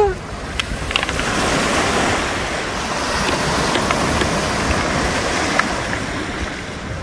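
Small waves lapping and washing over a rocky, pebbled lakeshore, a steady wash of water with a few faint clicks.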